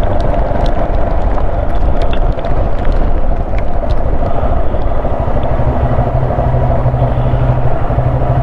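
Motorcycle running, a steady mix of engine and road noise, with an even low engine hum coming up about halfway through.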